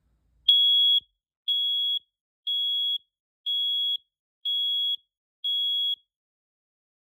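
First Alert GCO1 gas and carbon monoxide combination alarm sounding during a test: six high-pitched beeps, about one a second, each lasting about half a second, the first the loudest.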